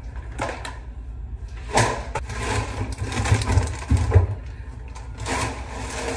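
Harley-Davidson V-twin engine idling steadily, kept running to charge a low battery, with clicks and clatter of objects being handled close to the microphone.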